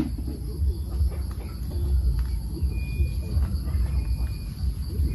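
Steady high-pitched chorus of insects, over a low rumble of outdoor background noise.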